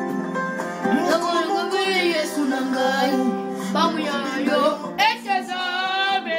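A child singing into a karaoke microphone over a karaoke backing track of sustained, held chords; the voice comes and goes in phrases.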